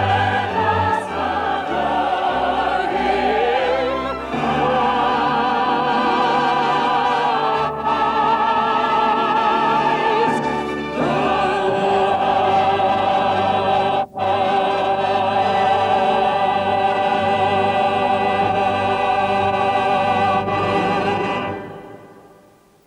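Operatic singing with choir and orchestra, the voices wavering with vibrato; a long note is held near the end and then fades away.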